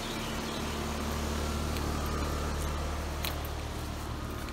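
ICP (Carrier) heat pump outdoor unit running in cooling mode: the compressor and condenser fan give a steady low hum.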